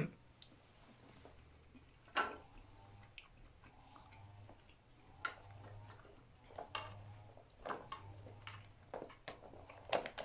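A spoon scraping and clinking against an aluminium mess tin while wet stew is squeezed out of a crinkling foil pouch. There are a handful of sharp clinks, the loudest about two seconds in, some with a brief metallic ring, and soft squelching in between.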